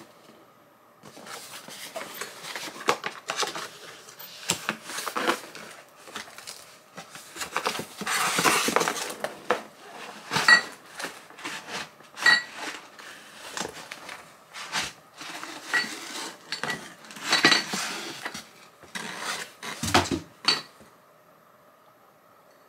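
Glass bubble tea cups clinking and knocking as they are unpacked from a cardboard box, with rustling and handling of the packaging. Several short ringing clinks come in the middle, and a dull thump near the end.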